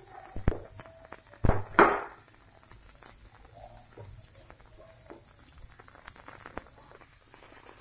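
Hot oil crackling and spitting in a shallow pan around frying fish steaks, a steady scatter of small irregular ticks. A few sharp knocks of a spoon against the pan come in the first two seconds, the loudest two close together.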